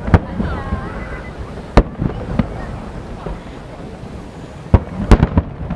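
Aerial firework shells bursting in sharp booms: one at the start, another a little under two seconds in, and a rapid cluster of several near the end. Crowd voices murmur and exclaim between the bursts.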